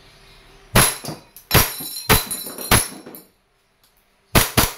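WE 1911 gas blowback airsoft pistol firing on green gas, sharp cracks of the shots and slide cycling: about four shots in the first three seconds, a pause, then two quick ones near the end. BBs strike a steel spinner target, which gives a short metallic ring.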